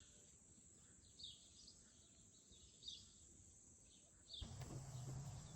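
Small birds chirping: a few short, high calls about a second apart over faint background noise. About four seconds in, a louder steady low hum with hiss cuts in.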